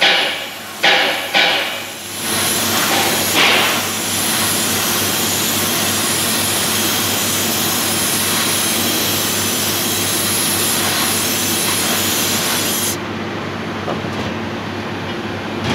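Sandblasting cabinet blast gun firing abrasive at a rusty steel plate: a few short spurts, then a steady hiss of continuous blasting that cuts off about 13 s in, leaving the machine's lower running noise.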